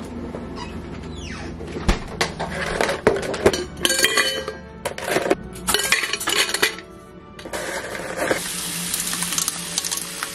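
Ice cubes clinking and knocking into an open stainless-steel water bottle. From about seven and a half seconds in, tap water runs steadily into it.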